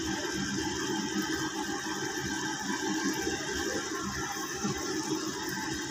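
Spinach and tomatoes simmering in oil in an aluminium pot on a gas stove: a steady hiss with a fine crackle.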